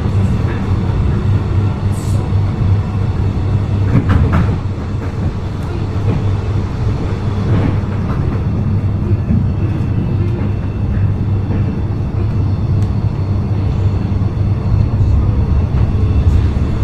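Inside a moving electric suburban train carriage: a steady low rumble of the train running on the rails, with a few clicks and knocks.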